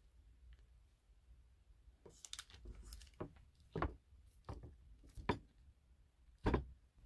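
Kitchen knife slicing a dense baked green tea terrine on parchment paper over a wooden board: a brief paper rustle, then a run of soft knocks as the blade presses through and meets the board.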